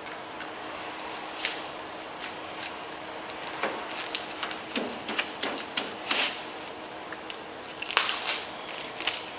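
Clear plastic cling wrap being stretched and pressed over a car hood wet with paint stripper, crinkling and crackling in short irregular bursts.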